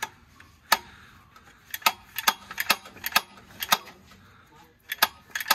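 A ratchet wrench clicking in short, irregular runs of sharp metallic clicks, some in quick pairs, as it is worked on the clutch of a Polaris RZR Trail 1000 side-by-side.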